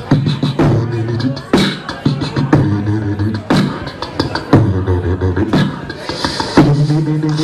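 Beatboxing: mouth-made beat with a heavy kick about once a second under a low sung bass line, repeating as a groove.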